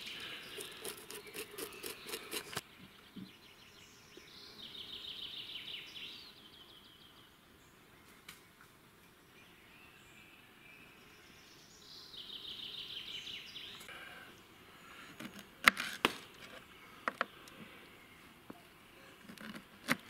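A songbird singing a short high trill twice, several seconds apart, over faint outdoor background. A rapid scratchy scraping in the first couple of seconds, and a few sharp knocks about three quarters of the way through.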